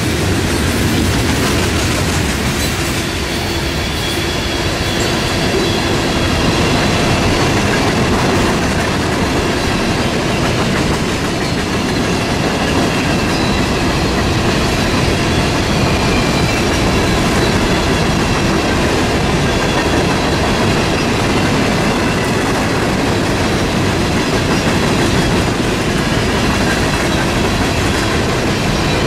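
Empty coal hopper cars of a freight train rolling past: a steady rumble and clatter of steel wheels on the rails, with faint high wheel squeal.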